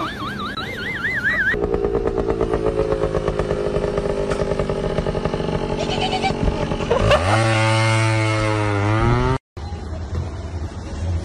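A vehicle engine running with an even pulse, which revs up sharply about seven seconds in and is held at high revs until it cuts off suddenly. Before it, a warbling high tone sounds briefly at the start.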